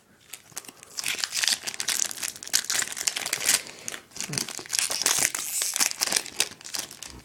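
Foil trading-card pack wrapper crinkling and tearing as a pack is opened and handled, in irregular bursts of crackle starting about a second in.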